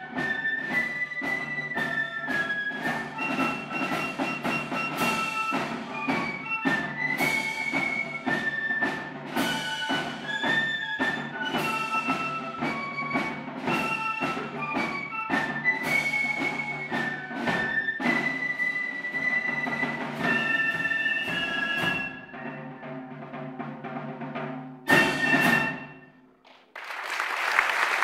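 Flute band playing a march, high flute melody over steady drum beats and a low sustained drone, closing with one loud final drum stroke about 25 seconds in. Audience applause starts just before the end.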